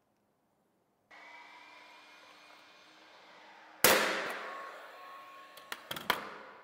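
Cordless nail gun whirring steadily as its motor winds up, then firing once with a loud sharp shot as it drives a nail into the cedar railing post, followed by a few quieter clicks.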